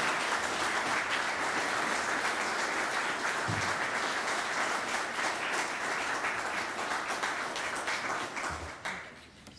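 Audience applauding steadily, dying away shortly before the end.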